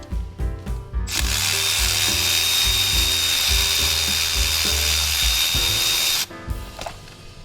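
A handheld power tool runs steadily for about five seconds, with a high whine, starting about a second in and cutting off abruptly. This is most likely a fastener being driven out.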